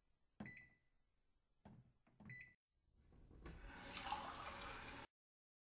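Electronic beeps from a KidKraft toy kitchen's fridge dispenser as its buttons are pressed, with a small plastic click between them. Then the toy plays a recorded water-pouring sound that swells for about two and a half seconds and cuts off suddenly.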